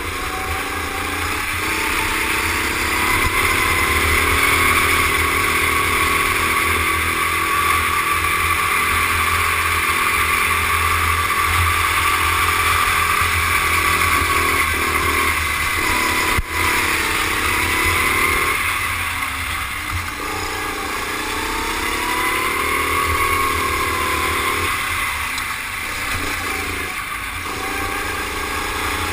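Rental go-kart engine running hard under throttle, its pitch climbing on the straights and dropping briefly twice in the second half as the driver lifts for corners, then rising again.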